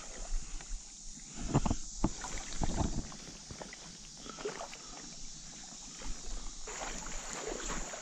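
Splashing and sloshing in shallow creek water, with a few dull thumps between about one and a half and three seconds in, over a steady hiss.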